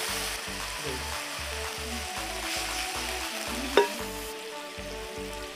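Maggi noodles in onion-tomato masala sizzling in a hot iron kadhai over a wood fire, with one sharp knock about two-thirds of the way through.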